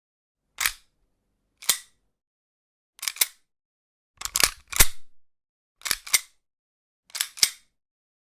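Handgun being cocked again and again: sharp metallic clicks, some single and most in quick double clicks, about six cockings spaced roughly a second apart, with the loudest pair a little past the middle.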